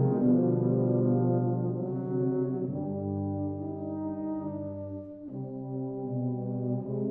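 Tuba and euphonium quartet (two euphoniums, two tubas) playing slow held chords, quieting about five seconds in and then swelling again.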